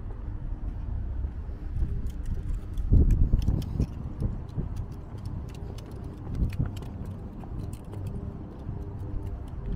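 Wind buffeting the microphone, a low uneven rumble that surges hardest about three seconds in, with scattered light clicks and jingles over it.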